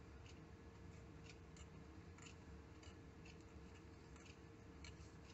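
Near silence, with scattered faint soft ticks from fingers handling tying thread and bucktail hair on a brass tube in a vise.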